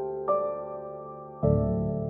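Background music: slow, single keyboard notes struck about once a second, each fading. A deeper, fuller chord comes in about one and a half seconds in.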